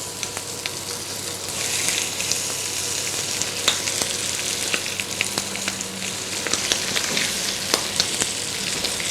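Chicken pieces frying in a very hot pan, browning the skin: a steady sizzle with scattered sharp pops of spitting fat. The sizzle swells for a moment about two seconds in.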